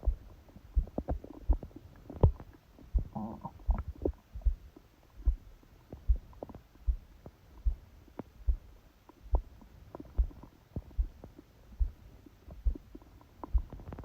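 A sleeping person's heartbeat thumping through the abdomen, picked up by a phone pressed onto the belly: a steady, regular thump a little faster than once a second, loud and fast from the pressure of the phone. A short stomach gurgle comes about three seconds in.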